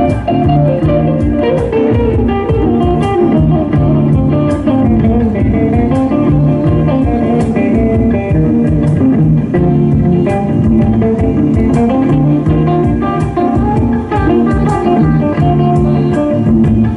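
Live band playing an instrumental passage, a guitar line over bass guitar and drums.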